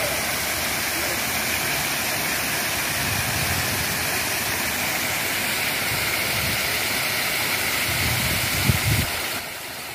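Steady rush of flowing river water, an even hiss with no tone in it. A couple of soft knocks come near the end, and then it drops suddenly quieter.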